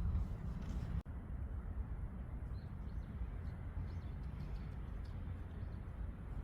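Steady low rumble of outdoor ambience with faint, scattered bird chirps, broken by a brief cut in the audio about a second in.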